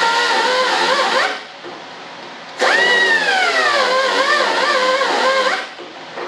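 A small high-speed power tool runs twice. The first run stops about a second in, and the second starts about halfway through. Its whine drops in pitch right after it starts and wavers up and down as it works under varying load.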